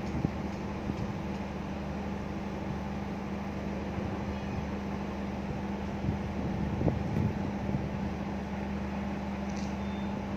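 Forklift engine idling steadily: a constant low drone that holds one pitch, with no revving.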